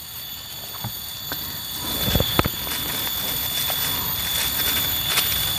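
Steady high-pitched insect chorus, with a few sharp clicks and knocks about two seconds in as plastic food boxes and a spoon are handled.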